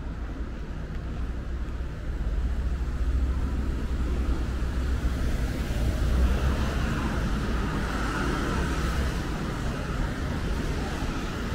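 Street traffic: passing vehicles making a steady, deep rumble that grows louder about two seconds in.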